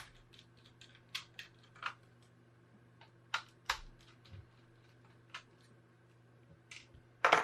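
Irregular sharp clicks and light taps from a screwdriver and small metal parts being handled while the heatsink is taken off a laptop's CPU and GPU, over a faint steady hum.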